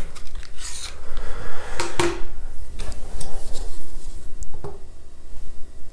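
Handling noise on a tabletop: a few sharp clicks and knocks, the loudest about two seconds in, with rubbing in between, as a plastic part is set down and a small metal burner part is picked up and turned in the hands.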